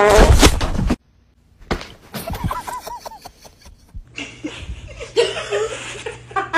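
People laughing and giggling in short bursts, with a loud burst of voice in the first second.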